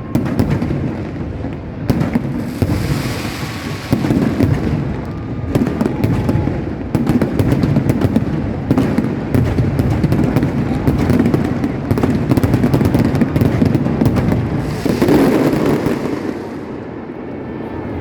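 Fireworks going off: a rapid run of sharp cracks and pops over a continuous low rumble of bursts, with a louder boom about 15 seconds in and a lull near the end.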